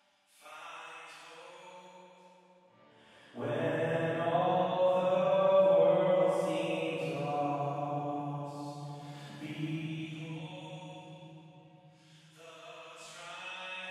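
Recorded worship vocal playing through an Abbey Road plate reverb, long sustained sung notes with a bright, shimmering tail. A little over three seconds in it turns suddenly much louder and fuller as the shaping EQ in front of the reverb is bypassed, letting through the low end and the honky mid-range. It thins again near the end.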